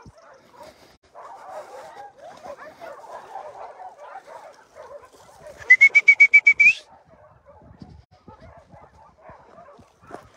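Faint dog whining and barking, then a little over halfway through, one loud high trilled whistle about a second long, a call to the dogs.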